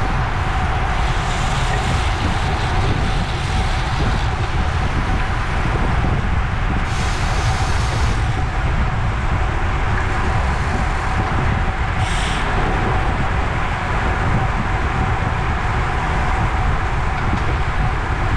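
Wind rushing over the microphone of a camera on a road bike riding in a pack at about 19 mph, with tyre noise on the asphalt: a steady, loud rumble. Brief hissy bursts come about seven and twelve seconds in.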